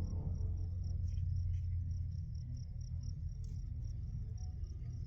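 Crickets chirping in a rapid, even pulse, over a steady low rumble.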